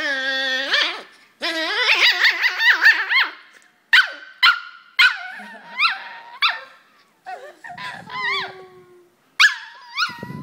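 Two poodles squabbling face to face, making high-pitched whines and yips. There is a long held whine at first, then wavering, warbling cries, then a string of short sharp yips with a longer falling cry near the end.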